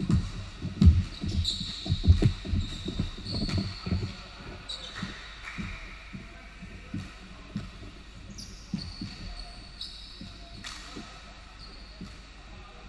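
Basketball bouncing on a hardwood court, mixed with players' footfalls: a quick run of thumps in the first few seconds, then scattered ones. Short, high sneaker squeaks come in between.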